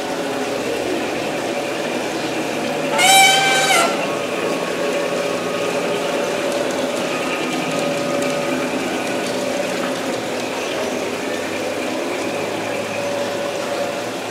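Model train running along its track with a steady rumble, and a single horn blast from the locomotive, under a second long, about three seconds in.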